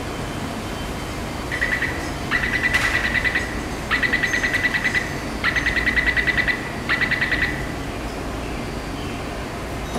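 Taipei Metro door-closing warning beeper: rapid high electronic beeps, about ten a second, in five bursts of roughly a second each. It signals that the train and platform screen doors are about to close.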